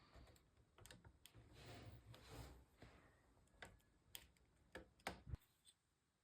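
Faint handling noises from PC parts being assembled: a soft rustle, then a handful of separate sharp small clicks a few tenths of a second apart.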